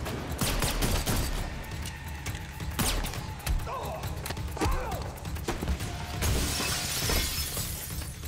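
Film fight sound effects: repeated blows and scuffling, then glass shattering about six seconds in, over a low music score.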